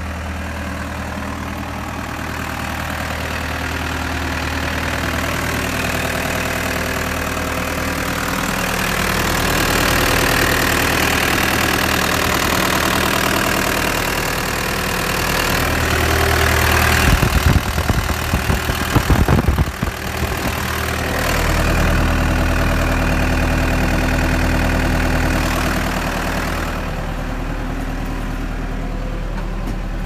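Case 590SM backhoe's 99 hp turbo diesel engine running steadily at idle. A little past the middle, a few seconds of loud, irregular buffeting rumble.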